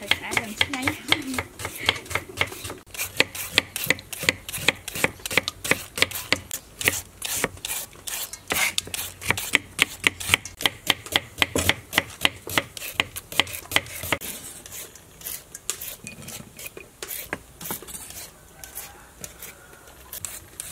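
Kitchen knife slicing shallots on a cutting board: a quick, steady run of sharp knife taps that thins out and grows quieter after about two thirds of the way through.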